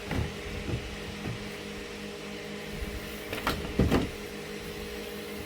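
Steady low hum with a few knocks of objects being handled. The loudest two knocks come about three and a half to four seconds in.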